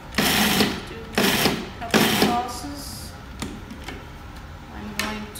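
Food processor pulsed three times in short bursts about a second apart, chopping a chunky chickpea and vegetable mixture. Short pulses rather than a continuous run keep the mix from being overmixed. A couple of faint clicks follow.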